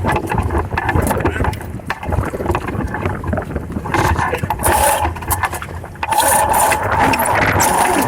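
Wind buffeting the microphone with rushing water noise aboard a Hobie Cat 16 sailing catamaran under way. Louder rushes of noise come about four seconds in and again from about six seconds in.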